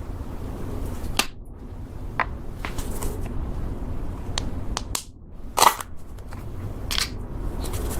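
Slime being pressed, folded and stretched by hand with makeup mixed in, giving irregular sharp pops and clicks, the loudest a little past halfway.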